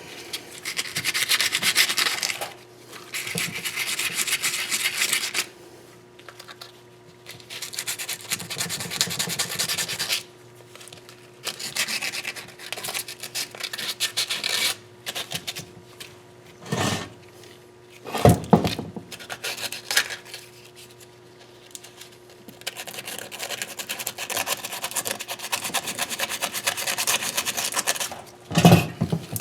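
Hand scrubbing or abrasive cleaning on a metal engine surface: spells of rapid back-and-forth rubbing strokes, each a few seconds long, broken by pauses, with a few short knocks in the second half.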